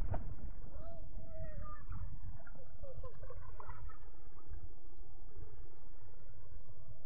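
Drone of a passing engine, slowly swelling and fading, over a steady low rumble of wind or handling on the phone's microphone. Short high calls come through in the first few seconds.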